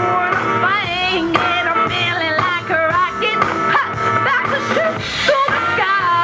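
Live Christian pop song: a woman's lead vocal singing sliding, ornamented notes over loud band music.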